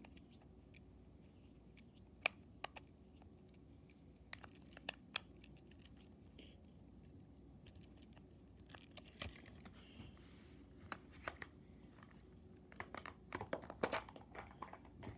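Faint clicks and small scrapes of a screwdriver turning the battery-cover screw on a plastic motorized toy engine, over a low steady hum. A quick cluster of clicks and knocks comes near the end as the toy and screwdriver are handled and set down.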